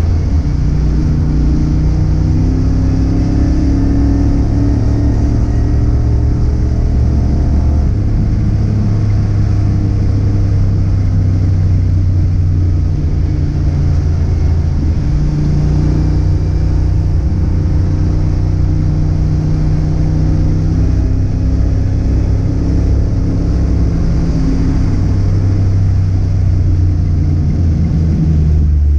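Car engine running continuously while driving, a deep steady drone whose pitch steps up and down every several seconds as the throttle changes.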